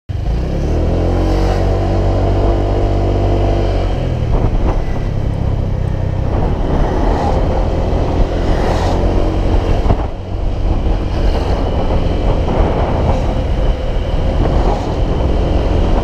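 Motor scooter engine idling steadily for about four seconds, then pulling away and running under way, its note rising and falling, mixed with rushing wind noise on the microphone.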